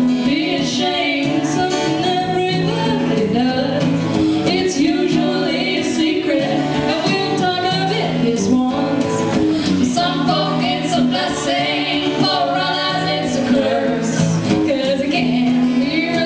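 Live song: a woman singing into a microphone over a strummed acoustic guitar, heard through a small venue's PA.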